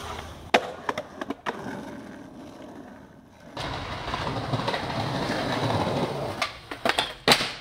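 Skateboard clacking several times, then wheels rolling over a concrete sidewalk for a few seconds, ending in a sharp tail pop and loud board impacts as the skater ollies up onto a metal handrail.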